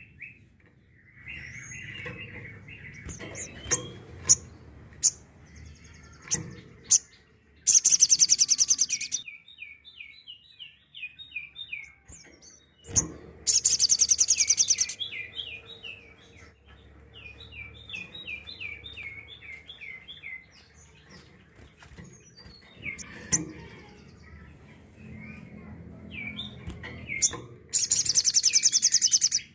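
Sogok ontong sunbird song: three loud, very high, rapid trilled bursts, the 'tembakan', each about a second and a half long, with runs of short falling chirps in between.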